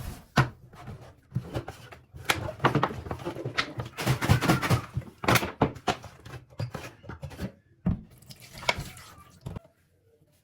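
A string of knocks, clunks and clatters from household things being handled and set down, with door-like thunks; it stops about nine and a half seconds in.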